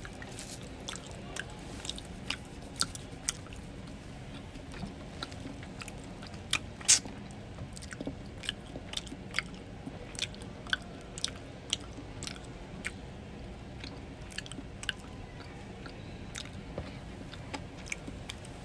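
Close-up eating sounds of French fries being chewed, with irregular sharp wet mouth clicks and smacks, the loudest about seven seconds in.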